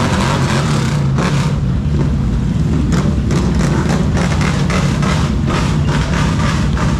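ATV engines idling steadily, with heavy rain falling.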